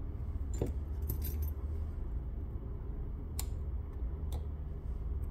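Light metallic clicks and taps of a small tri-point screwdriver and tweezers working the screws and metal battery-connector shield inside an iPhone 15. The clicks come singly, with a quick cluster just over a second in, over a steady low hum.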